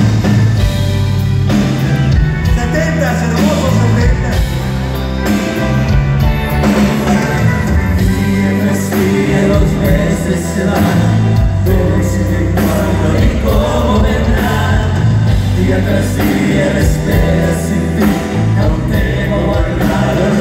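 Live grupera band playing loudly, with several male singers taking turns and singing together over electric guitar, bass and drums, heavy in the bass.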